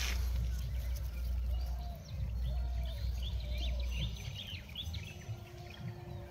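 Small birds chirping in quick, short calls over a low rumble of wind on the microphone. The rumble drops away about four seconds in.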